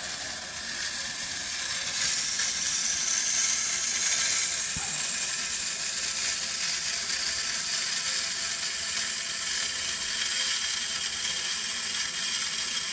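A newly installed toilet fill valve refilling the tank after a flush: water hissing steadily through the valve, with a faint steady whistle.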